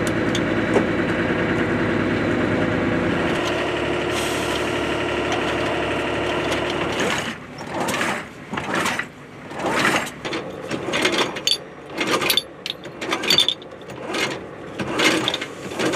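An engine running steadily for the first half. Then come irregular short knocks and clanks of hands handling metal.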